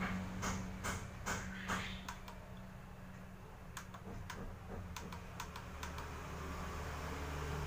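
Small plastic buttons clicking about a dozen times, several in quick succession and then more spaced out, as the TV's channel and menu controls are pressed. A low steady hum and hiss sit underneath and ease off about two seconds in.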